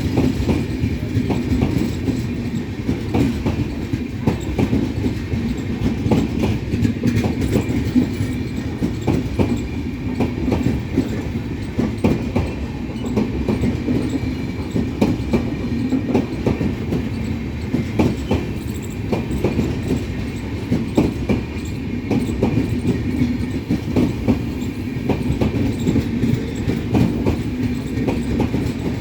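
Indian Railways Pawan Express passenger train running on the track: a steady rumble with wheels clicking and clattering over rail joints, unbroken throughout.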